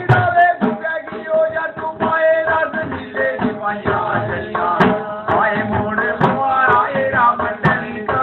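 A devotional folk song: a male voice singing to the steady beat of two hand-played, two-headed barrel drums.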